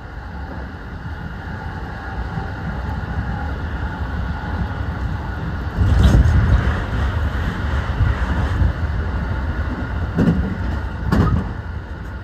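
Low, steady rumble of a train running, heard from inside the carriage. It gets louder about six seconds in, and two sharp knocks of the wheels over the rails come near the end.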